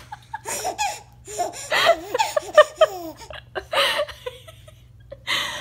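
Hearty laughter, coming in several bursts, just after a baby has passed gas.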